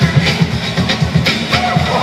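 Loud breakbeat music for a breakdance battle, with a heavy pulsing bass beat and drum hits and a few held melodic notes near the end.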